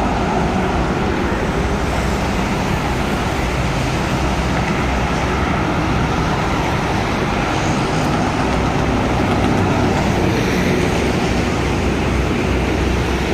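Steady road traffic noise with a continuous low engine rumble, a little louder around the middle; no horn melody stands out.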